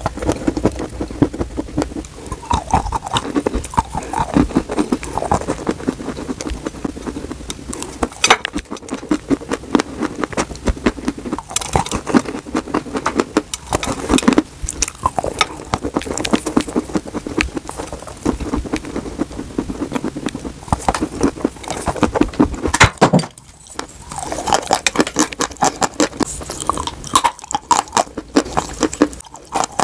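Close-miked crunching and chewing of dry, chalky white sticks: a dense stream of crisp crackles and bites. There is a brief pause about three quarters of the way through.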